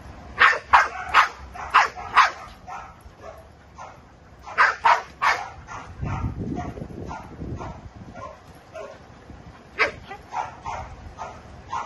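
Dog barking in runs of short, sharp barks: about six in quick succession at the start, four more a little before halfway, and another run near the end.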